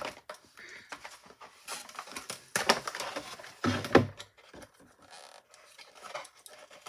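Cardboard toy box and its packaging being pried and wrestled open by hand: irregular rustles, scrapes and knocks, with a heavier thump about four seconds in.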